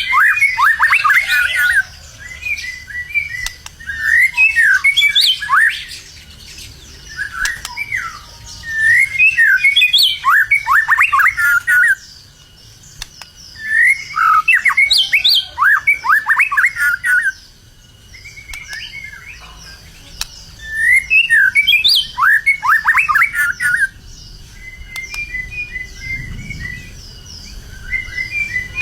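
White-rumped shama (murai batu) singing loudly in repeated phrases of rapid, falling notes, each phrase lasting a few seconds with short pauses between. Softer chattering notes near the end.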